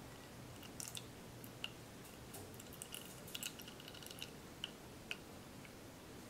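Faint scattered ticks and light clicks from a metal mesh sieve as batter is strained through it into a glass bowl, with a quick run of them about three to four seconds in.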